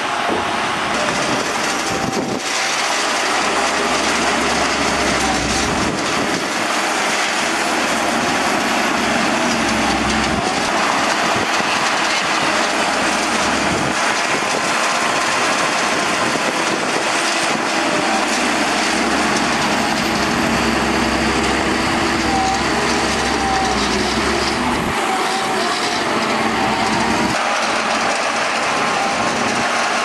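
Shantui DH17C2 crawler bulldozer working as it pushes dirt with its blade: its diesel engine runs steadily under load while the steel tracks roll over the soil.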